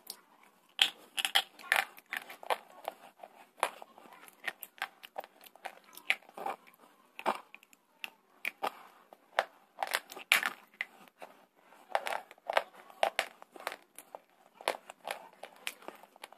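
Close-up crunching of slate bars being bitten and chewed: sharp, irregular gritty crunches, several a second, loudest about a second in and again about ten seconds in.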